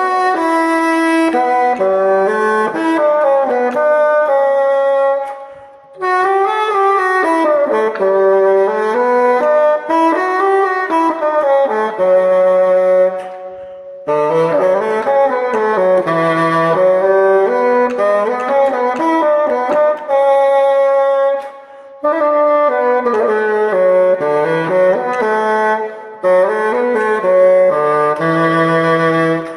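Solo bassoon playing a flowing melody in phrases, with short pauses between them.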